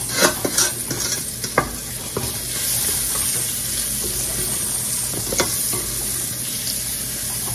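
Chopped onion sizzling in leftover chicken-frying grease in a stainless steel skillet, a steady hiss, while a spoon stirs and scrapes the crumbs across the pan, with several scrapes and taps, most of them in the first couple of seconds.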